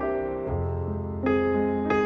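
Background piano music: slow, held notes, with three new notes or chords struck across the two seconds.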